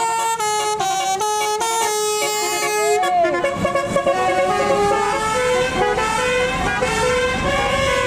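Tour bus's telolet musical horn playing a tune: a quick run of short stepped notes, then about three seconds in a swooping note and a slower run of longer notes, over traffic noise as the bus passes.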